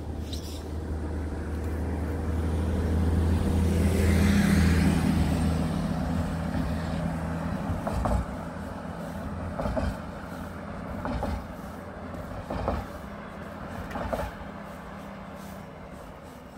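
A large road vehicle's engine passing close, growing louder to its peak about four seconds in and then fading away. Several short knocks follow in the second half, about a second and a half apart.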